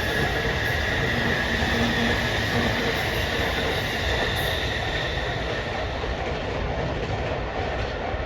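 JR East E257 series limited express electric train running past on the rails: a steady rolling noise with a high, steady wheel squeal that fades about halfway through. The rolling noise eases a little toward the end.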